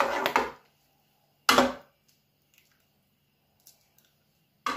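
Metal ladle stirring thick dal in a large metal kadhai: a scraping stir that fades out just after the start, then two short sharp knocks about three seconds apart, the ladle striking the pan.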